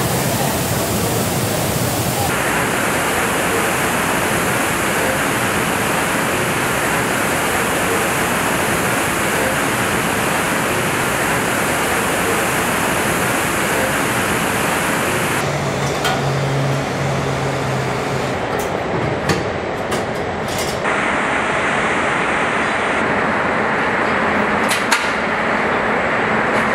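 Steady, loud rushing air noise of an automotive paint shop, with robotic spray guns and booth ventilation, for the first half. Past the middle it gives way to body-shop line noise: a low hum for a few seconds, then scattered sharp clicks and knocks.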